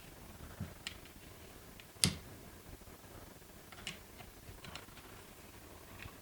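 Faint scattered clicks and ticks of an Allen wrench working a screw into a polymer buttstock cheek rest, with one sharper click about two seconds in.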